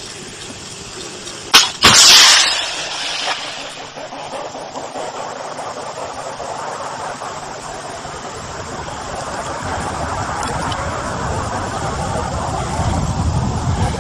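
HJ-8 (Baktar-Shikan) anti-tank guided missile fired from its tripod launcher: a sharp crack about a second and a half in, then a loud blast and rushing hiss from the rocket motor that fades within about a second. A steady rushing noise follows and slowly grows louder toward the end.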